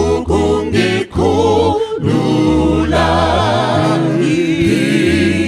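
Choir singing a hymn a cappella in isiNdebele, drawing out the word "ukungikhulula" in long, wavering held notes.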